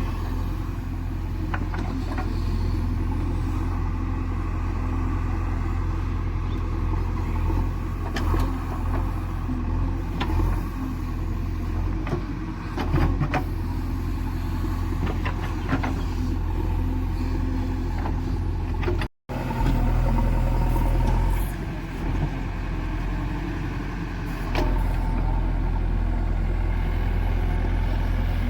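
Heavy diesel engine of earth-moving machinery running steadily under way, with a low, even drone and scattered clanks and knocks. It breaks off for an instant about two-thirds of the way through.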